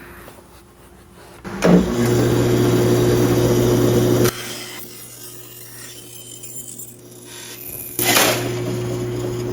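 Power saw motor and blade running and cutting wood: a loud start about a second and a half in, the cutting noise breaking off a few seconds later while a steady hum runs on, then a second loud surge near the end. The trouble is traced to the saw's bottom pulley, which had worked loose and slid out.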